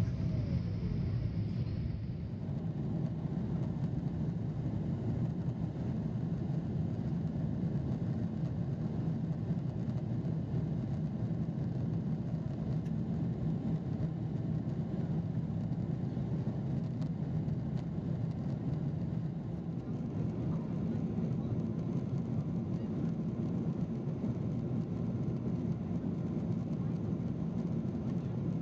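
Steady low rumble of a Boeing 777's jet engines and airflow as heard inside the passenger cabin during the climb after takeoff.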